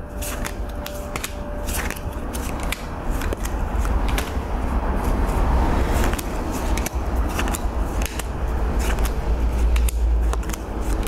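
Divination cards being handled on a table, a run of quick clicks and rustles over a low rumble.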